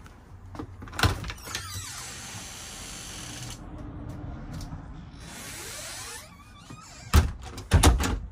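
A motorhome's interior bathroom door being handled. There is a sharp click about a second in, squeaking and rubbing as it swings, then a few loud knocks near the end.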